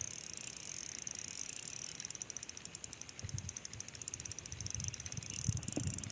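Fishing reel being cranked while a hooked trout is brought in: a fast, even ticking whir that becomes plain about two seconds in, with a few low handling thumps.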